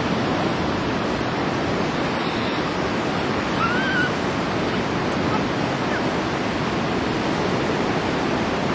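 Ocean surf: waves breaking in a steady, unbroken wash.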